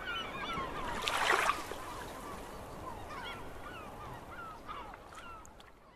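A flock of birds calling, many short overlapping calls that curve in pitch, with a brief burst of rushing noise about a second in; the sound fades out near the end.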